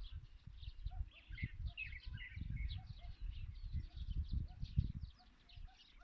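A chorus of many small birds chirping and calling together, dense short high chirps overlapping throughout. Under it a low rumble that stops about five seconds in.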